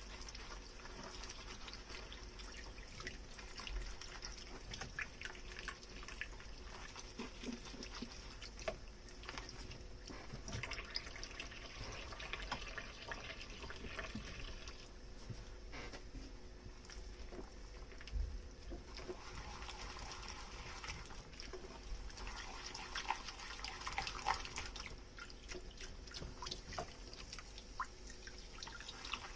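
Dishes being hand-washed at a kitchen sink: water dripping and trickling, with light clinks of dishware. The tap runs twice for a few seconds each, once around the middle and again later on.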